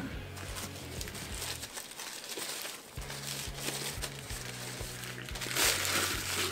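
Paper wrapper of a McDonald's breakfast burrito being peeled off and crumpled in the hands, crinkling loudest near the end as it is balled up, over background music with a steady beat.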